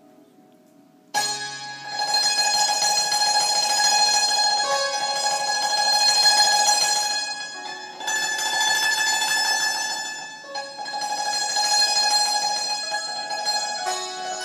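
Persian santoor (hammered dulcimer) played solo with light mallets. After about a second of faint fading notes comes a sudden loud entry of rapid repeated strokes on ringing pitches, with brief dips about eight and ten and a half seconds in.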